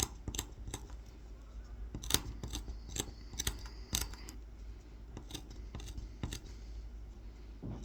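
Kolrosing knife blade cutting into the wood of a carved honey dipper: a string of small, irregular ticks and short scratches as the tip nicks and draws through the grain.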